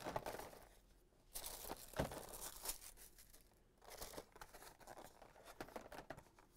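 Carded plastic blister packs and cardboard being handled and shuffled: faint rustling and crinkling with scattered small clicks and knocks, the sharpest about two seconds in.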